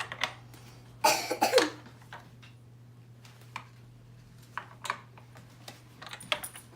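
A cough about a second in, followed by a few scattered light clicks, typical of plastic toy train pieces being handled, over a steady low hum.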